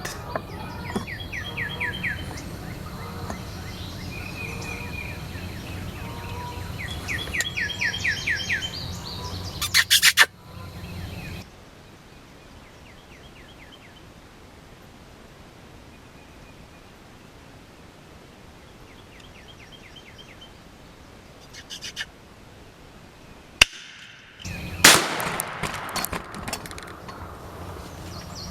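Songbirds chirping in repeated short trills. A cluster of loud, sharp bangs comes about ten seconds in, and another sharp hit comes near the end.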